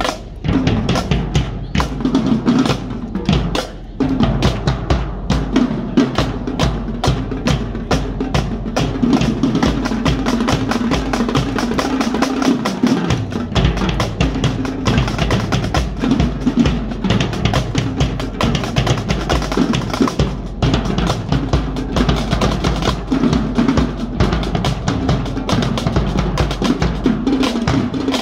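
Marching drumline playing a continuous cadence: Pearl marching snare drums, tenor drums and pitched bass drums struck with sticks and mallets in dense, rapid strokes. There is a brief break in the playing about four seconds in.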